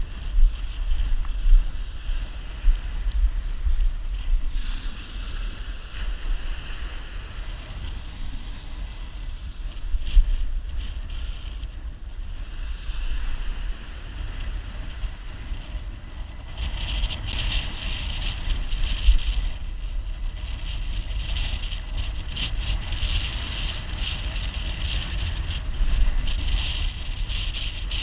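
Wind buffeting the microphone on an open beach: an uneven low rumble with gusts, under a steady high hiss that grows stronger in the second half.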